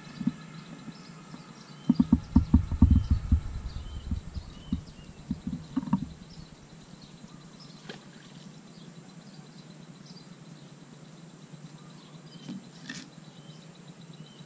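Small birds chirping now and then over a steady outdoor background. About two seconds in there is a burst of loud, low rumbling thumps, with a few more a couple of seconds later.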